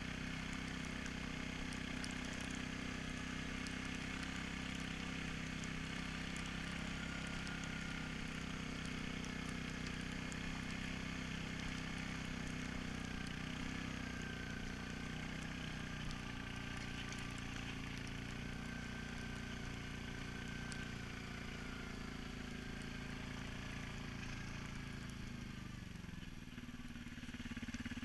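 Suzuki King Quad 750 ATV's single-cylinder engine running steadily as the tracked quad drives over snow. The engine note sags about three seconds before the end, then picks up again.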